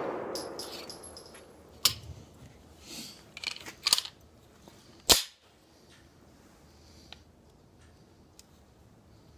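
The echo of a 9mm pistol shot dies away under the range roof. Then come the metallic clicks and clacks of the SCCY CPX-2 being reloaded by hand, with a cluster about three to four seconds in and one sharp clack about five seconds in.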